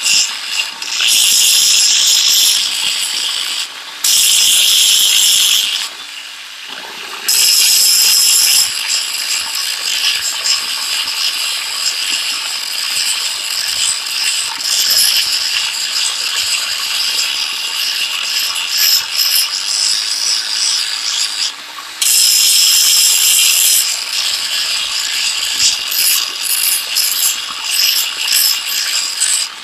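Handheld electric angle grinder with its disc grinding the steel of an adjustable wrench: a loud, harsh, high-pitched grinding hiss that eases off briefly three times, around 4 seconds, 6 to 7 seconds and 22 seconds in.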